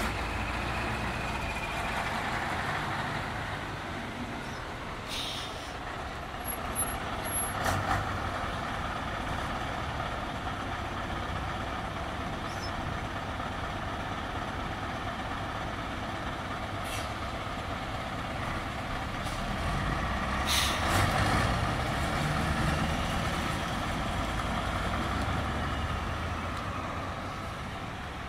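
Scania 142's V8 turbo diesel engine running as the tractor unit pulls away and drives off, growing louder for a few seconds about two-thirds of the way through.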